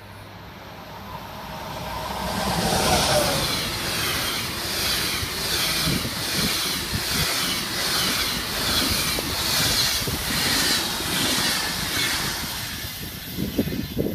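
Passenger train of SBB coaches hauled by an electric locomotive passing close at speed. The locomotive's pitch drops as it goes by about three seconds in. The wheels then clatter over the rails in an even beat about twice a second as the coaches rush past, and the sound fades near the end.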